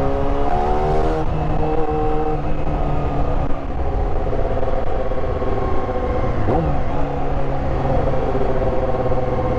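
Yamaha YZF-R6's inline-four engine running under way, its pitch rising over the first second as it accelerates and then holding steady, heard from the rider's seat over a low rush of road and wind noise.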